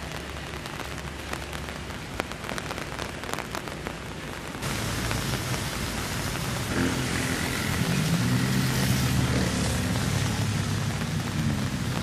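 Steady rain falling, with drips ticking close by. About halfway through the sound changes to a louder hiss, with a low, wavering hum under it.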